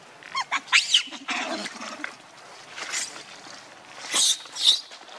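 Macaques giving a series of shrill, high-pitched squeals and screeches: a few quick wavering cries about half a second in, then sharper screams near the end.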